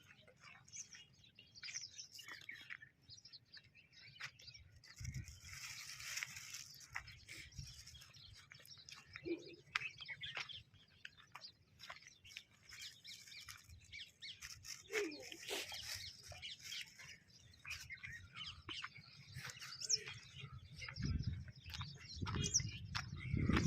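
Small birds chirping, with many short high chirps and scattered light clicks.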